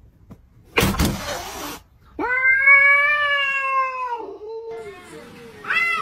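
Domestic cats in a standoff: a sharp hiss about a second in, then a long, drawn-out yowl of about two seconds that fades out. Near the end another cat starts a wavering yowl.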